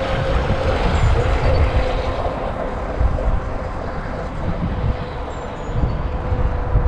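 VolantexRC Atomic SR85 RC catamaran's brushless motor whining steadily at full throttle on a high-speed pass, over a low rumble.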